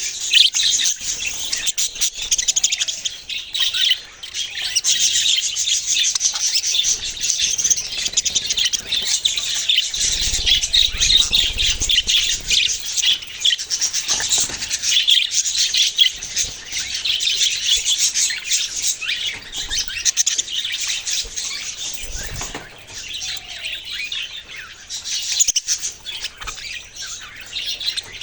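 A group of small cage birds chirping and twittering continuously, many overlapping calls.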